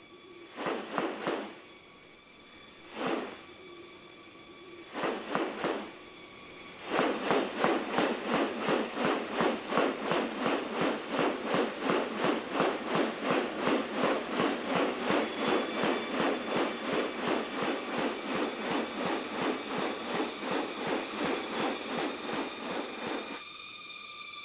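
Rainforest wildlife: a steady high insect drone, a few separate animal calls, then from about seven seconds a fast regular series of call notes, about two to three a second, that stops near the end.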